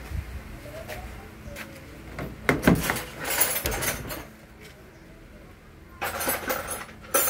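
Hand tools clicking and clinking against metal in two bursts, with a quieter gap between, as a spark plug is taken out of the engine.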